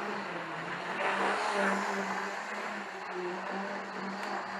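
00 gauge model Class 50 diesel locomotive running along the track with a coach in tow: a steady electric motor whine whose pitch wavers slightly, over a hiss of running noise.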